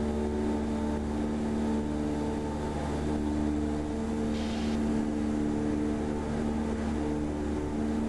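Cessna 172R's four-cylinder Lycoming engine and propeller droning steadily in flight, heard inside the cabin. A brief hiss cuts in about halfway through.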